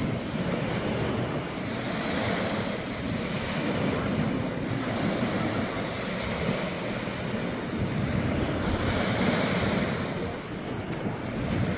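Small waves washing onto the beach in a steady surf noise, with wind rumbling on the microphone. A brighter hissing wash comes about three quarters of the way through.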